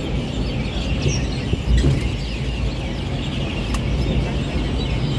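Steady low rumble of a moving vehicle, with a busy chatter of many birds calling over it.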